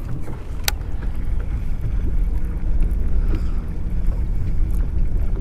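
Steady low rumble of wind buffeting the microphone on a fishing boat, with a single sharp click under a second in.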